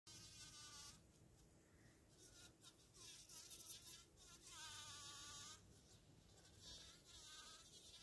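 A bumble bee buzz-pollinating inside a rose: faint, high-pitched buzzing in about five short bursts with pauses between them. This is the vibration of her flight muscles that shakes pollen loose from the anthers.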